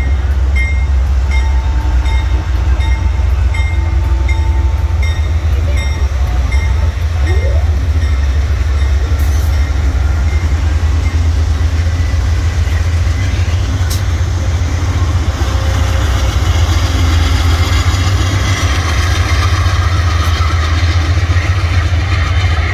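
Amtrak P42 diesel locomotives pulling a passenger train away from the station, a heavy, steady engine rumble. A locomotive bell rings at a steady pace for the first several seconds. Later the wheels of the passenger cars rolling over the rails grow louder.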